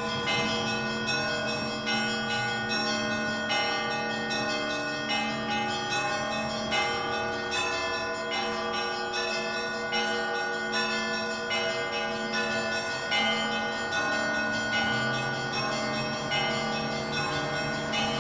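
Orthodox church bells ringing together: small bells struck in a quick, busy pattern several times a second over the steady hum of larger bells.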